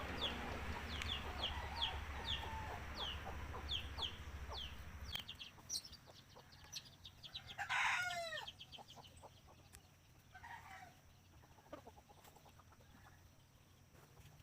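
Fowl calling: a quick run of short, high, falling peeps, then one loud squawk about eight seconds in.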